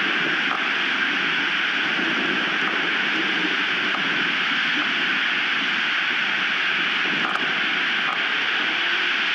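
Strong wind blowing: a loud, steady rushing hiss with a couple of faint ticks.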